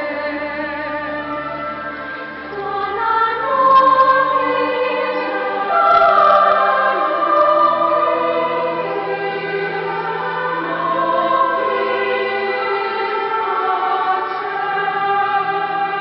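A large women's and girls' choir singing an Advent processional as the singers walk past, with long held low organ notes underneath, in a large church.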